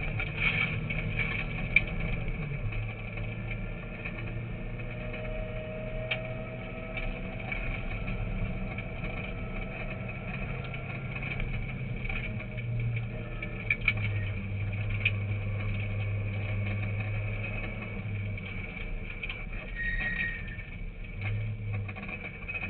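Car engine running as the car drives along a dirt road, heard from inside the cabin, its note stepping up and down a few times. Road and tyre noise underneath, with scattered sharp clicks and knocks.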